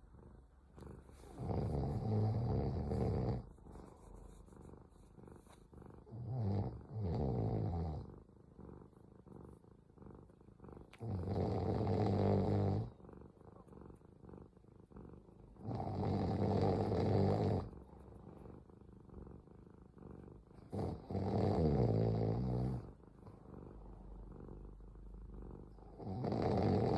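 Cat purring and snoring in about six loud rumbling rounds. Each round lasts about two seconds and they come every four to five seconds, with quieter pauses between.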